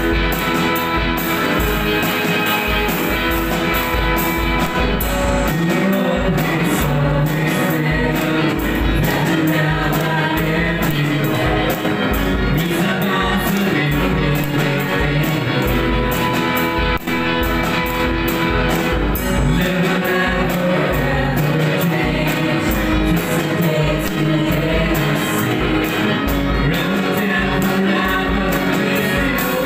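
Live worship band playing a praise song: voices singing through microphones over keyboard, guitar and a drum kit keeping a steady beat.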